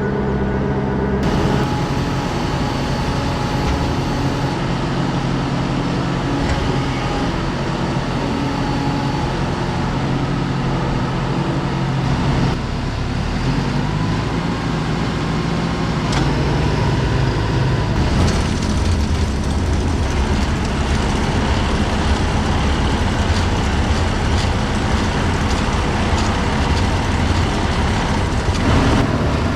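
Tractor engine running steadily while working a feed mixer wagon. Its note shifts about twelve seconds in and again a few seconds later.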